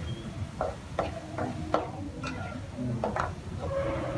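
Metal spatula clinking and scraping against a steel wok while stirring minced meat, about six sharp, irregular clinks.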